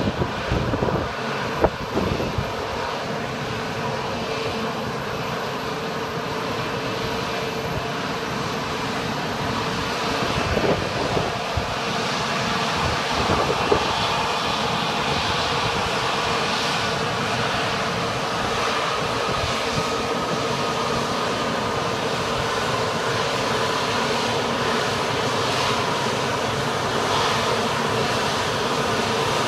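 Bombardier CS100 airliner's Pratt & Whitney PW1500G geared turbofans running, a steady jet rumble with whining tones, getting a little louder about twelve seconds in. A couple of sharp knocks sound near the start.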